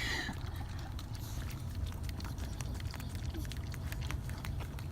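Dogs licking and lapping whipped cream (puppuccinos) from small cups: a rapid run of wet clicks and smacks over the car's steady low rumble.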